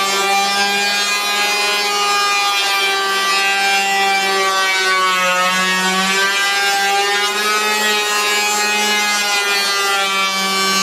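Electric hand power planer running steadily with a high whine as it shaves a laminated wooden beam; its pitch sags briefly about halfway through.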